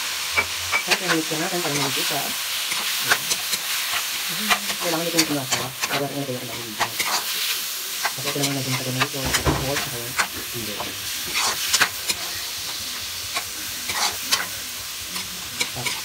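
Pork and pork liver sizzling in hot oil in a wok, stirred with a metal spatula that scrapes and clicks against the pan many times.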